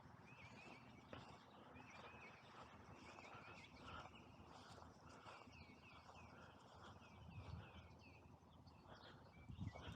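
Faint outdoor quiet with a songbird singing runs of short, repeated chirping notes in the distance.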